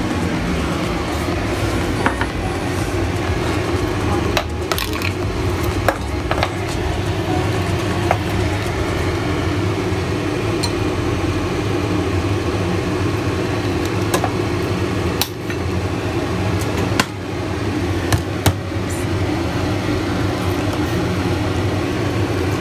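A steady low hum, with a handful of sharp clinks and knocks from a porcelain bowl and containers being handled on a countertop.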